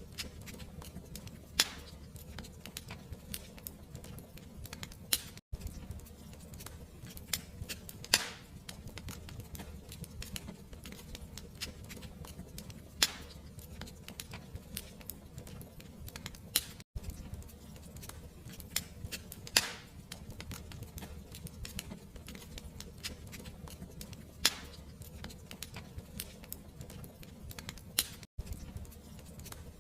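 Fire crackling: scattered small snaps and a few louder pops over a steady low noise. The sound drops out very briefly three times, about every eleven seconds.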